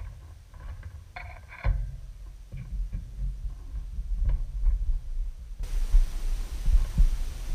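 Small metallic clicks of needle-nose pliers and spade terminals being worked onto a run capacitor's terminals while wiring an air-conditioner condenser, over an uneven low rumble that grows louder after about two seconds.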